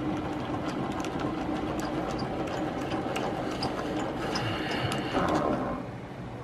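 Hand-cranked honey extractor spinning two honey frames, its top gearbox and basket giving a steady mechanical whirr with light ticking as it flings honey out of the uncapped comb. The whirr falls away near the end as the basket slows to a stop.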